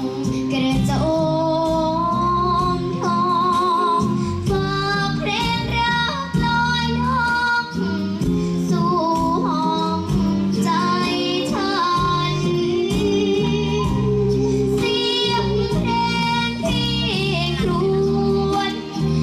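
A young girl singing a Thai luk thung song into a microphone over loud backing music with a steady beat, with a wavering vibrato on her held notes.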